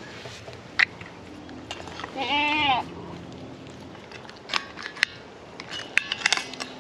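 A Kiko goat bleats once, a short call that rises and falls in pitch, about two seconds in. A few sharp clicks come before and after it; the loudest is about a second in, and a cluster comes near the end.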